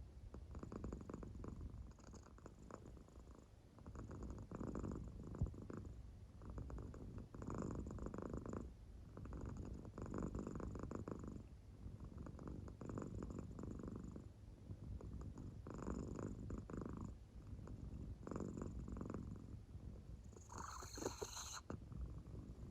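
American Shorthair cat purring softly in its sleep, one purring pulse with each breath about every two to three seconds. A brief higher-pitched sound comes near the end.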